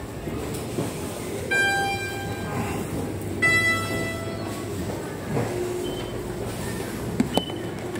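Two-note announcement chime, a higher ringing tone and then a lower one about two seconds later, over the steady low rumble of an electric train. A couple of sharp clicks come near the end.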